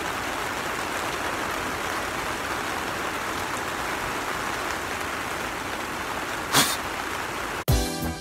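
Steady rain falling on the plastic film of a greenhouse, heard from inside, with one short sharp knock near the end. Music cuts in just before the end.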